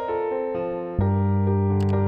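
Background music on electric piano, notes changing step by step; about a second in a deep bass note comes in and the music gets louder. A brief click sounds near the end.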